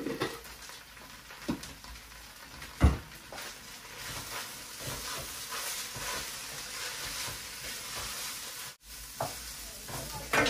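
Rice being stirred with a wooden spoon in a large pot as it fries in oil and ghee with browned onions. There are a few knocks of the spoon against the pot in the first three seconds, the loudest about three seconds in, then a steady soft sizzle.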